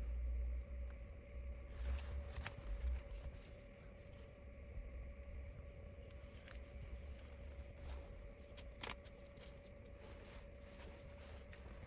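Faint handling noises from repair work on a tablet: scattered small clicks and taps, with low bumps in the first few seconds, over a steady faint hum.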